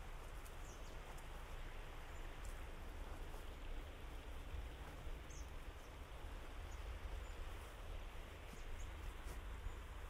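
Mountain river water rushing steadily, an even hiss of flowing water over a low rumble.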